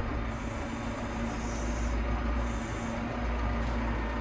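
Massey Ferguson 6713 tractor engine idling steadily, heard from inside the cab as a low rumble with a steady hum, while the front-loader bucket is lowered on its hydraulics.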